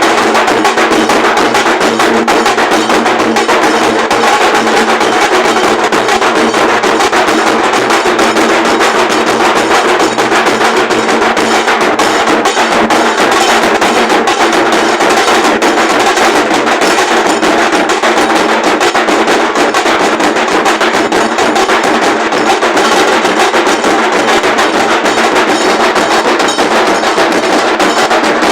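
Large dhol drums played by a group, a loud, dense and unbroken fast beat of stick strokes.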